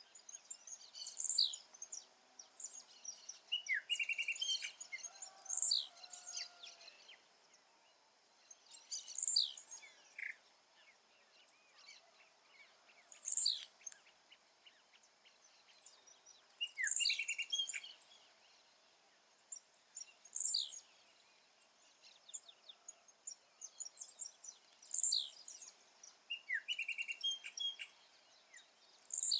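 Blue-black grassquit (tiziu) singing: a short, high phrase ending in a quick falling note, repeated about every four seconds, eight times. Fainter chirps of other birds come in between.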